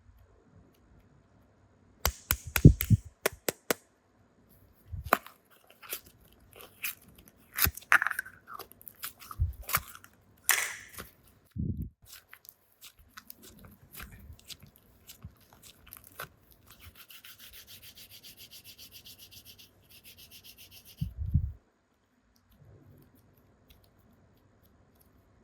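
Hands handling toys: rubbing and scraping with scattered sharp clicks and taps and a few low thuds, and a rapid, even ticking buzz lasting about three seconds past the middle.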